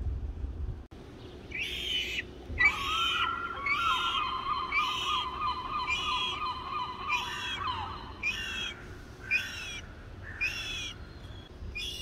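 Birds calling at a feeder: a call repeated about once a second, each one falling slightly in pitch. Under the calls a thin, steady whine is held from about three to eight seconds in.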